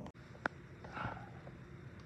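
A dog gives one short bark about a second in, just after a sharp click.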